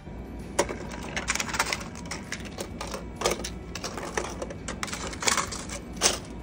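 Foil blister-pack pill cards being handled and shuffled in a medication dispensing cabinet drawer: irregular crinkles and sharp clicks, with a few louder clicks.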